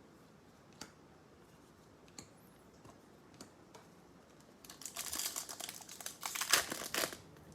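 A few faint clicks as trading cards are handled, then about two and a half seconds of crinkling as a foil trading-card pack wrapper is opened.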